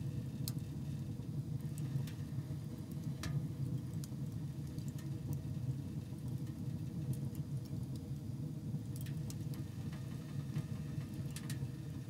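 Wood fire burning in a small camp wood stove: a steady low rumble with a few sparse crackles.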